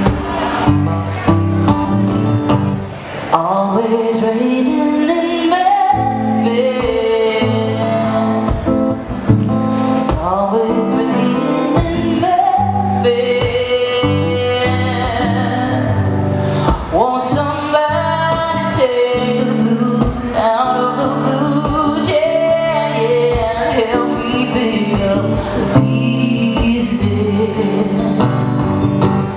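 A woman singing live with her own strummed acoustic guitar, her voice sliding between long held notes.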